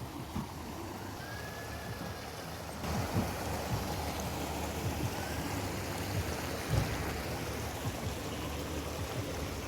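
Running water of a stream: a steady rushing that grows a little louder about three seconds in.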